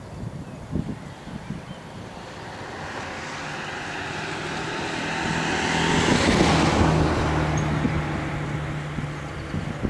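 A passing vehicle's engine noise swells to a peak about six and a half seconds in, with a steady low hum, then fades away.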